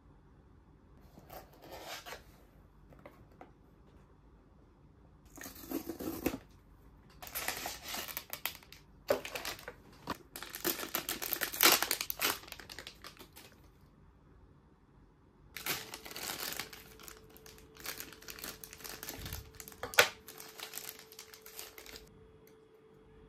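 Blind-box unboxing: a small cardboard box opened and plastic wrapping torn and crinkled off a vinyl figure, in irregular bursts of rustling. A single sharp click or tap comes near the end.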